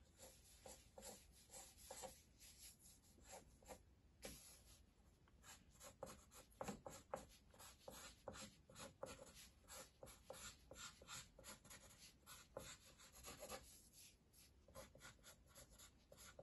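Pencil scratching on drawing paper in a run of quick, short, irregular sketching strokes, faint.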